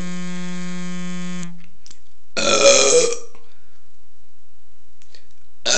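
A young woman burping from carbonated soda: one long loud burp about two and a half seconds in, and a shorter one starting right at the end. Before the first burp, a steady electronic buzzing tone holds for about a second and a half, then stops.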